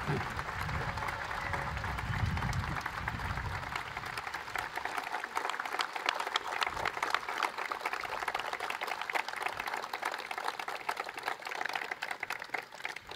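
Crowd applauding, thinning out near the end.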